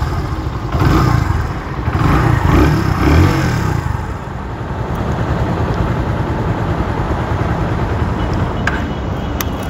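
Kawasaki W175's single-cylinder engine running as the bike is ridden at low speed. It surges louder several times in the first few seconds under throttle, then runs steadily, with a couple of light clicks near the end.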